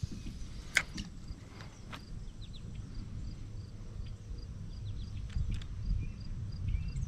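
Low rumble of wind on the microphone, with two sharp clicks about one and two seconds in. From about two seconds on there is a faint, regular high ticking, about three ticks a second.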